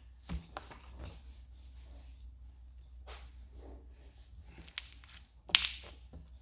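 Slime being squeezed and stretched by hand, giving scattered sticky clicks and little pops, with one sharp snap about five and a half seconds in.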